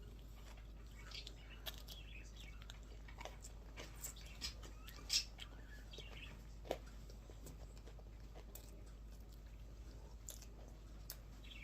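A child chewing and biting into a chocolate-coated wafer ice cream cone: scattered small crunches and mouth clicks, the loudest about five seconds in.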